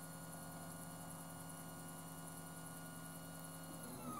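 MendelMax 1.5 3D printer's stepper motors humming faintly and steadily as the printer runs the skirt around the part, which primes the nozzle.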